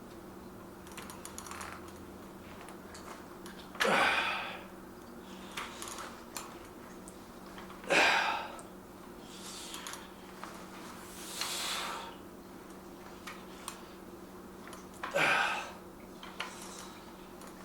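A man breathing out hard in short puffs, about one every four seconds, as he works through a set of dumbbell curls. Faint clicks come between the breaths, over a steady low hum.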